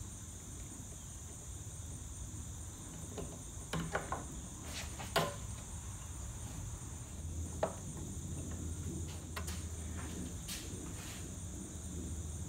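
A handful of small, sharp metal clicks and taps as the thin tabs of a small metal bezel are bent over by hand behind a wooden cabinet panel, the strongest about five seconds in. Underneath is a steady high chirring of crickets.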